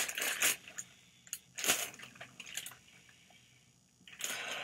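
Clear plastic packaging bag rustling and crinkling as it is handled, in short bursts: a rustle at the start, a sharp crackle a little under two seconds in, small crackles after, and another rustle near the end.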